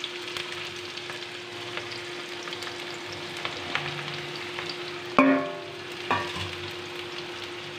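Onions and panch phoron sizzling in hot mustard oil in a kadhai as sliced parwal (pointed gourd) goes in, with a steady frying hiss. Two sharp metallic clanks ring out about five and six seconds in, the first louder, from a utensil striking the pan.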